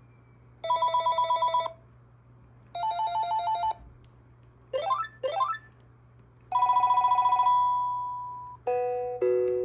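Panasonic KX-TG954x cordless phone playing its ringtones one after another as short electronic tone patterns. There are two warbling trills, then two quick rising sweeps about halfway through, then a longer trill that fades out, and two falling notes near the end.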